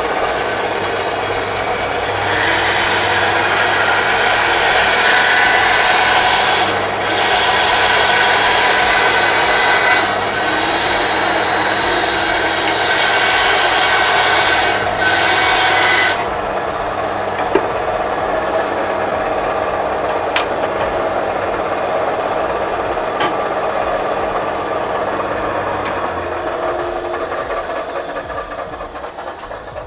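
Electric power tool working wood: a loud, steady rasping hiss over a constant motor hum, broken briefly three times, then the motor runs on without the rasp and winds down near the end.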